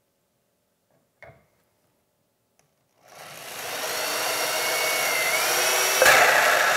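Power drill with a hole saw boring into the plywood deck of a fibreglass boat, starting about three seconds in and building to a steady whir with a faint motor whine, louder near the end. A single light click about a second in.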